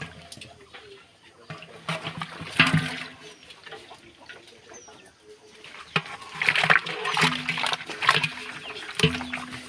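Water splashing and sloshing in an aluminium pot crowded with live stinging catfish (shing), as a small metal bowl is scooped among the thrashing fish, with clatters of metal on metal.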